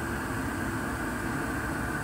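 ICP Comfortmaker two-stage gas furnace running steadily, its burners firing and fans turning, making an even rushing hum. It is still on low fire and has not stepped up to high stage.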